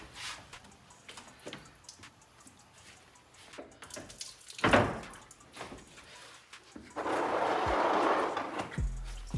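Clicks and knocks of radiator and cooling-fan parts being worked loose, with one sharp knock about halfway through. Near the end comes about two seconds of steady rushing noise, the loudest sound.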